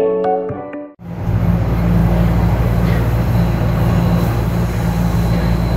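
Steady rumble and low hum of a moving TTC subway car, heard from inside the car. It starts abruptly about a second in, cutting off gentle background music.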